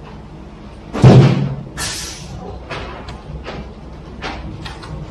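Wet concrete slopping out of a concrete pump hose onto a garage slab: a loud thump about a second in and a short hiss just after, then a regular slap about every three-quarters of a second as the pump pushes each stroke of concrete through the hose.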